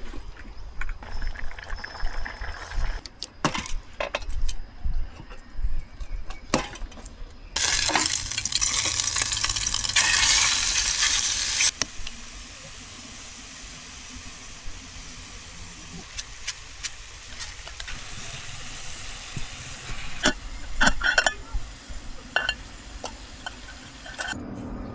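Pots, pans and utensils clinking and knocking. A loud steady hiss runs for about four seconds near the middle, then a quieter hiss with more clinks.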